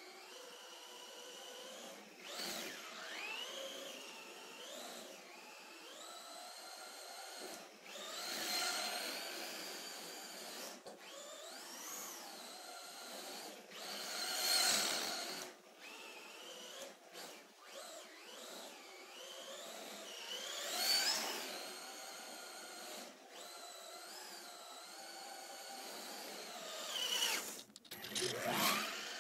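A 1/10-scale Tamiya Evo5 electric RC car whines from its motor and drivetrain, the pitch rising and falling as the throttle is worked while it drifts. The whine swells loudly four times as the car passes close.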